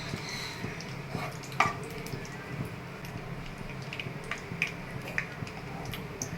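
Ghee heating in a kadai, a steady low sizzle with scattered light clicks and clinks, one sharper clink about a second and a half in.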